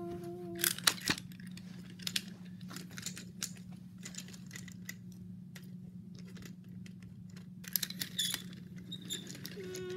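Wooden toy trains and track pieces clicking and clacking as they are handled and pushed together, with a cluster of sharp knocks about a second in and another near eight seconds, over a steady low hum.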